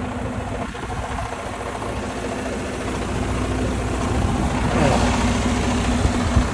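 Vehicle engine running at idle with a steady low hum. From about two-thirds of the way in, a passing vehicle grows louder and its pitch sweeps down.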